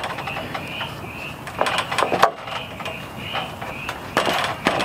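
Sharp clicks and knocks from hands fitting a metal strap and screws onto a 2x6 board on a metal roof frame, bunched about two seconds in and again near the end. A repeated high chirp, about twice a second, sounds behind them.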